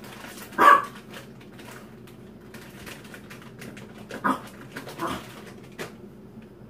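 A dog giving short cries four times, the first and loudest about a second in.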